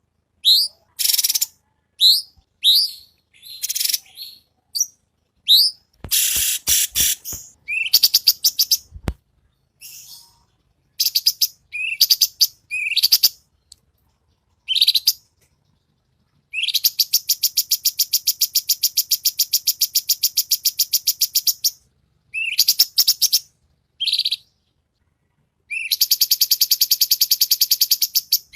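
Cucak cungkok singing: a string of short rising whistled notes, then loud rapid trills of quickly repeated notes, the longest lasting about five seconds.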